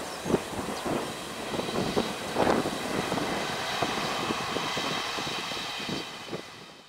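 Alstom Coradia iLint hydrogen fuel-cell railcar passing on the track: a steady rumble with irregular knocks and clicks from the running gear and a faint steady high whine, fading near the end as it moves away.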